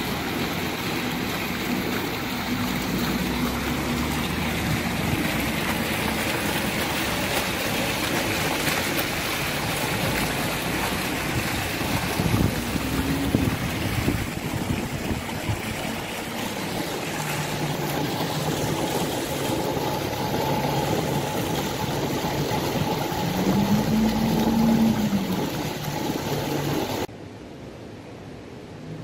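Water fountain jets splashing into a shallow pool, a steady rushing of falling water, with a low engine hum from passing traffic rising and falling at times. The rushing stops suddenly near the end, leaving a quieter hush.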